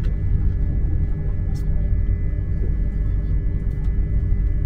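Passenger train running, a steady low rumble with a thin steady high whine over it and a few faint clicks.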